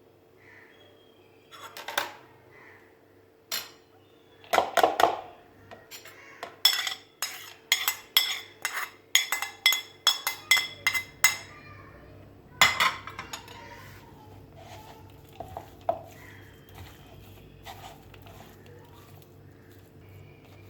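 Metal utensils clinking and knocking against a dish: a few knocks, then a quick run of ringing clinks about three a second in the middle, then a louder knock and fainter scattered taps.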